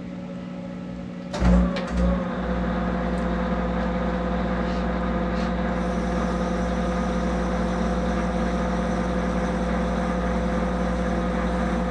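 Monarch 10EE lathe starting a metric threading pass, with a clunk about a second and a half in as the spindle is engaged. The spindle drive and gearing then run steadily with a constant hum and whine. The running sound falls away at the end as the electric leadscrew stop cuts out and the drive motor is dynamically braked to a stop.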